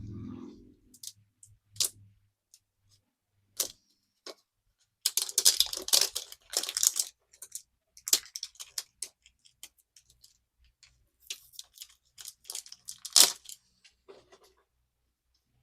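Plastic blind-box packaging being torn open and crinkled by hand, with scattered clicks and taps of plastic parts being handled; the tearing and crinkling come in two busier spells, about five seconds in and again around eleven to thirteen seconds in.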